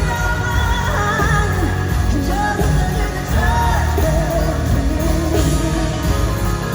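Live concert sound: a woman singing lead over a loud full band with heavy bass.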